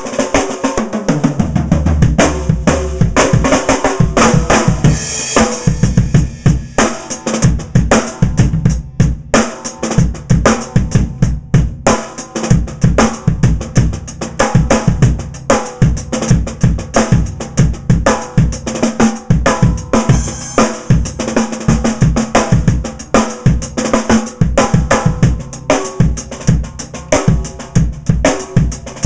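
Pearl Firecracker steel-shell snare drums, heads loosened to a medium tuning with no dampening and the snare wires on, played in a busy stream of rapid strokes and rimshots with a kick drum beneath and some cymbal.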